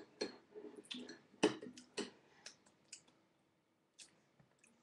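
Irregular soft clicks and taps of hands striking and brushing against each other while signing close to the microphone, closer together in the first two seconds and sparser after.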